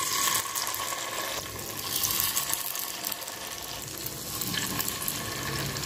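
Pepper appam batter sizzling in hot oil in the wells of an appam pan as fresh ladlefuls are dropped in. A steady frying hiss, louder in stretches.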